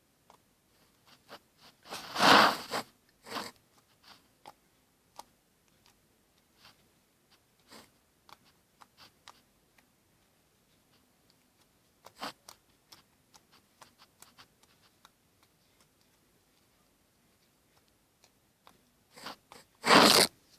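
Homemade glue-and-talc slime pressed and folded by hand to make it click: scattered small clicks and pops, with a louder crackling squish about two seconds in and again near the end.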